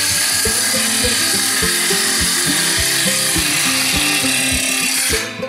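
Table saw cutting through a wooden board, a loud, steady cutting noise that starts abruptly and stops shortly before the end. Background music with a beat plays underneath.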